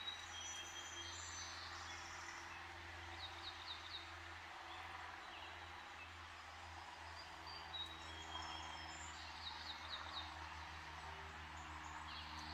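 Background songbirds calling and singing in short high notes, twice with a quick run of four notes, over a steady hum of road traffic noise.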